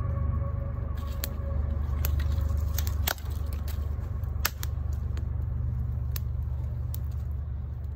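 Small fatwood and dry-grass fire crackling, with scattered sharp pops and snaps, the loudest about three and four and a half seconds in, over a steady low rumble.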